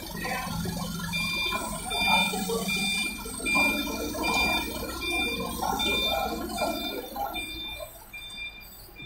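TCM forklift running as it drives with a load, its warning beeper sounding about twice a second from about a second in.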